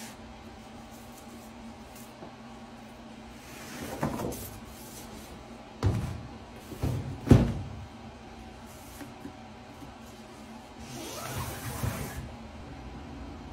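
Unboxing handling sounds. A paper shopping bag rustles, and midway a rigid cardboard gift box knocks twice against a table as it is set down. Near the end its lid is lifted off with a rustle.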